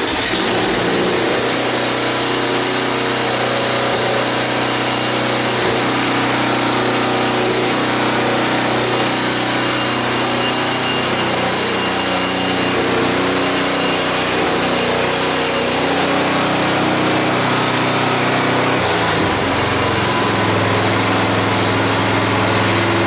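Simplicity 924 snowblower's single-cylinder gas engine running steadily at full throttle with the choke on, just after a cold pull-start. Its low note changes slightly about nineteen seconds in.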